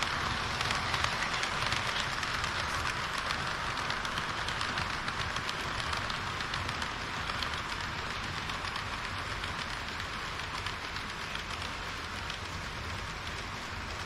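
HO-scale model freight train (an EH200 electric locomotive hauling tank cars) rolling over plastic sectional track: a steady rattling clatter of many fine wheel clicks, louder at first and slowly fading as the train moves away.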